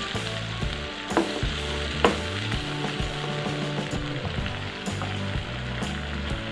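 Blended chili, shallot and garlic spice paste with tomato sizzling as it sautés in oil in a nonstick frying pan. A spatula stirs it, with a couple of sharper scrapes against the pan about one and two seconds in.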